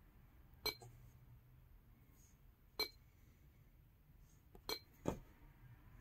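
Four sharp taps on an Android car head unit's glass touchscreen, each with a brief glassy click: one under a second in, one near the middle, and two close together near the end, the last one heavier.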